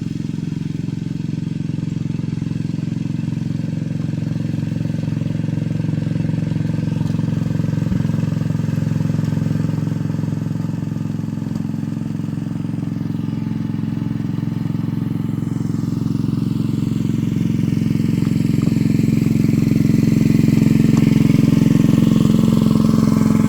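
Small engine of a miniature-railway locomotive running steadily under load as it pulls its train up a grade, growing gradually louder.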